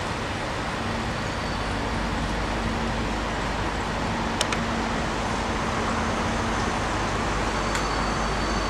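A Class 37 diesel-hauled test train pulls slowly out. The locomotive's English Electric diesel engine gives a steady hum over the rumble of the train moving on the track, with two sharp clicks about four and a half and eight seconds in.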